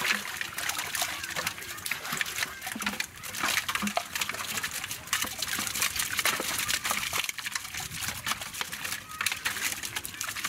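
Hands working in shallow muddy water over a net, picking out prawns and small fish: a dense, steady run of small splashes, drips and sharp clicks.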